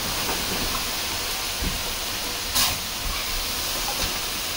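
Water steaming off the hot stones of a homemade sauna stove: a steady hiss with one brief louder spurt about two and a half seconds in.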